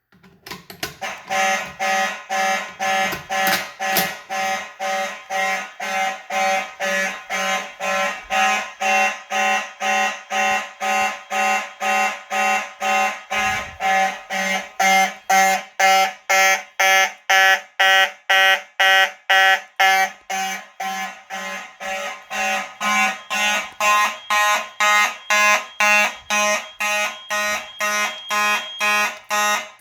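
Mechanical fire alarm horns sounding in a pulsed coded pattern, a harsh buzzing blast about twice a second that goes on throughout. The fire alarm system is in alarm after a BG-12 manual pull station has been activated.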